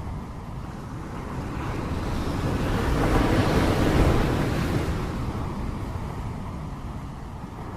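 Heavy rain falling as a steady rushing noise, swelling louder and deeper around the middle and easing off again.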